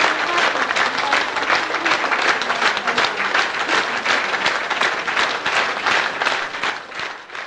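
Audience applauding, a dense run of many hands clapping that fades away near the end.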